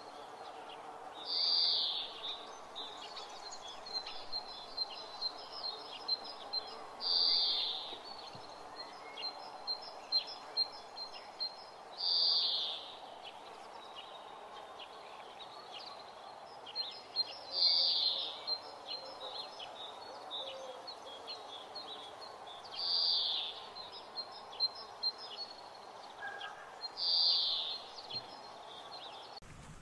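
Outdoor birdsong ambience: many short high chirps, with a louder call repeating about every five seconds, over a steady background hiss.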